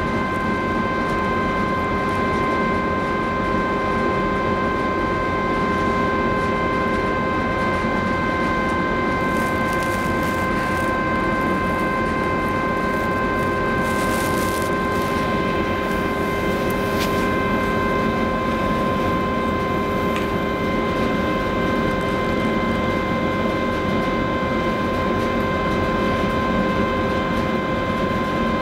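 Steady drone of a large cruise ferry's machinery as it leaves the quay, a low rumble with several steady whining tones held above it. A few brief hissing sounds come around the middle.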